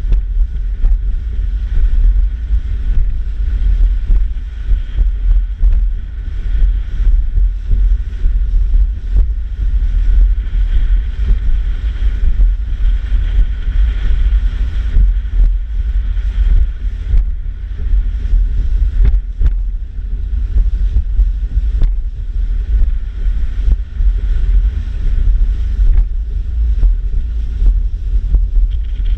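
Gusty wind buffeting the microphone with a heavy, constantly fluctuating rumble, over a fainter steady hum from the bass boat's motor.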